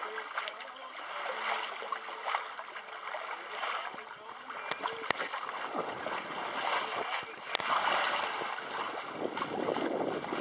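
Water rushing and splashing along the hull of a small wooden sailing boat under way through choppy water, with wind on the microphone; the rush swells about eight seconds in, and there are two brief clicks.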